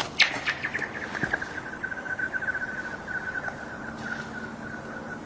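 A rock skipped onto thin lake ice hits with a sharp crack, then slides across it while the ice sings: a fast run of high chirping pulses that falls a little in pitch, settles into a steady ringing tone and fades out near the end.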